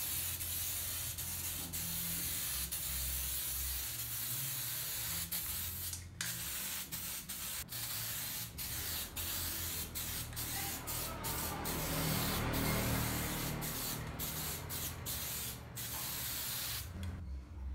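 Aerosol spray can of Diton Premium grey primer hissing as it sprays, in passes broken by many short stops of the nozzle from about six seconds in; the spraying stops shortly before the end.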